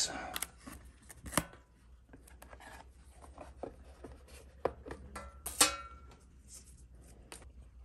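Hands tucking wires into a plastic electrical box and fitting its plastic lid: faint scattered clicks and rubbing, a sharper click about a second and a half in, and a brief squeaky scrape of plastic about five and a half seconds in.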